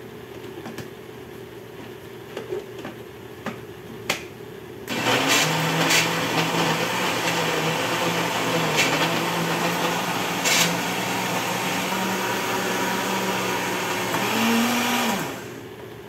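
Countertop kitchen blender switched on about five seconds in, running steadily for about ten seconds as it blends herbs, onion and water into a seasoning broth, then cut off; the motor's pitch rises briefly just before it stops. A few light clicks come before it starts.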